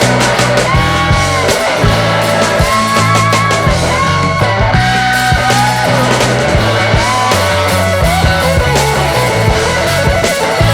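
Background rock music: electric guitar lines bending in pitch over a steady bass and drum beat.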